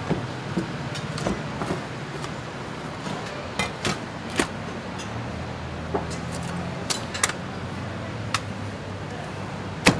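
A butcher's knife and cleaver clicking and tapping against pork rib bones and a stainless steel table while cutting up ribs: about a dozen irregular sharp clicks, the loudest near the end, over a steady low hum.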